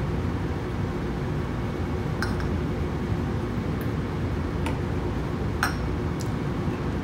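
A few light clinks of bar tools and glassware, a metal jigger and shaker tin and a beer can set down on the bar, spaced out over several seconds above a steady low background rumble.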